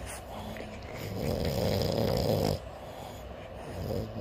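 A sleeping French bulldog snoring: a softer breath, then one long, loud, rasping snore in the middle, then quieter breathing building again near the end.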